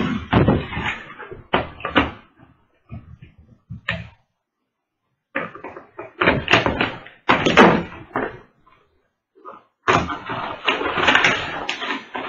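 A cardboard toy box being handled and opened: irregular bumps and scrapes of the box, scissors slitting the tape along its seam, and a stretch of continuous cardboard-and-packaging rustling near the end as the flaps are pulled open.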